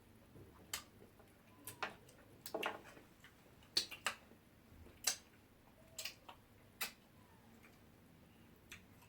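Wet mouth smacks and clicks of someone eating fufu with ogbono soup: about ten short, sharp ones at irregular intervals.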